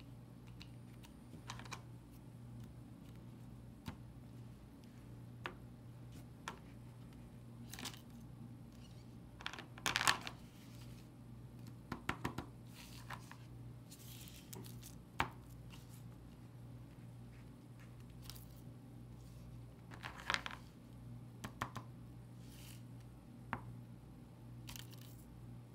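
Faint tabletop game handling: short crinkles of a plastic sheet protector and scattered light clicks and taps as a paper spinner is flicked and small plastic toy figures are set down, the loudest rustles about ten and twenty seconds in. A steady low hum runs underneath.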